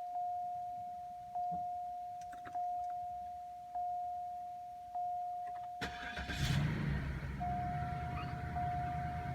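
The car's warning chime repeats about once a second. About six seconds in, the 2005 Cadillac DeVille's Northstar V8 cranks and starts, then runs lumpy with a lingering misfire while the chime continues over it.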